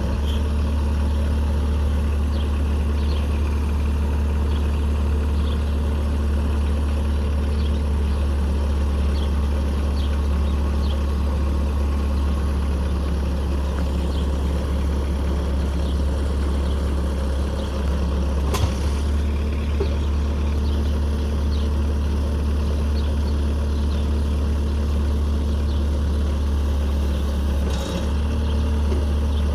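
Bobcat 773 skid steer's turbo diesel engine running steadily, with a single sharp knock about two-thirds of the way through.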